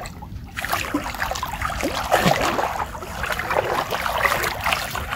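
Water splashing and trickling in quick, irregular bursts, starting about half a second in.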